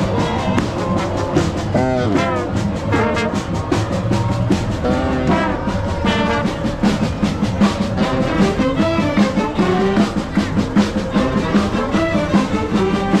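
Music with brass instruments over a fast, steady drum beat.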